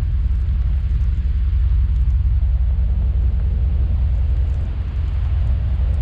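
Strong wind buffeting the microphone: a heavy, ragged low rumble that runs on steadily.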